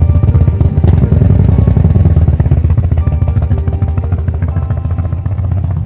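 Harley-Davidson V-twin motorcycle engine with its loping, uneven exhaust beat, revving up as the bike pulls away about a second in and then running on as it rides off, growing a little quieter near the end.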